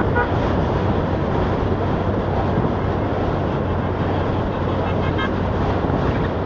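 Steady engine and road noise heard from inside a moving 4x4's cabin, with a constant low hum, as a convoy of Land Rovers drives past the other way. A few short horn toots come about five seconds in.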